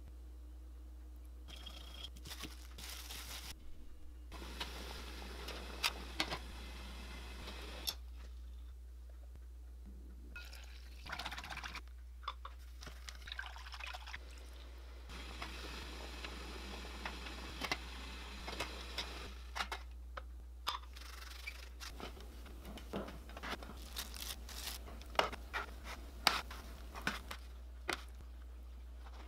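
Kitchen sounds in short separate stretches: rice-flour batter being stirred with chopsticks and poured into an aluminium pan, with liquid sounds. Sharp taps and clicks run through it, the loudest a couple of times early on and a cluster near the end, over a steady low hum.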